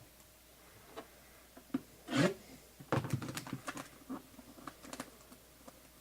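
Packaging of a sealed box being scraped, torn and handled by someone struggling to get it open: one long scraping tear about two seconds in, then a quick flurry of clicks and crackles.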